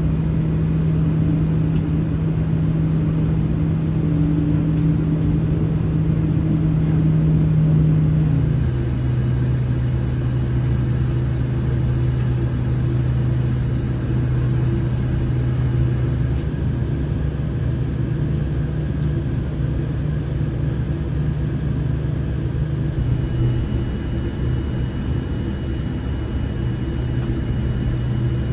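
Steady rumble and hum of a Boeing 787-10 on the ground, heard from inside the cabin. The main hum drops to a lower pitch about eight seconds in, and a faint high whine joins near the end.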